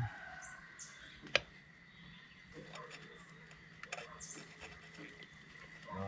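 Faint background of birds chirping in short, high, falling calls, with one sharp click about a second and a half in and a few lighter clicks around four seconds in.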